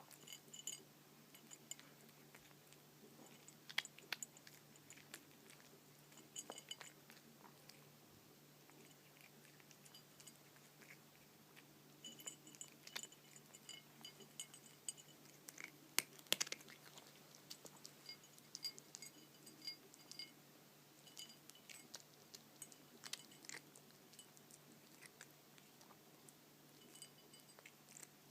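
A cat crunching dry kibble: clusters of crisp little crunches broken by short pauses.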